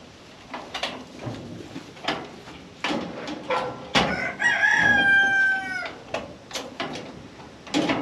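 A rooster crows once, a single call of about a second and a half starting about four seconds in, the loudest sound here. Around it, scattered sharp knocks and rattles of a metal livestock-pen gate being handled.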